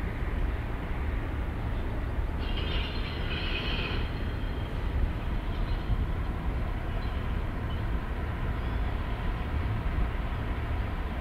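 Low, steady rumble of the Mega Express ferry's engines as the ship passes close by, with a brief high-pitched sound about two and a half seconds in.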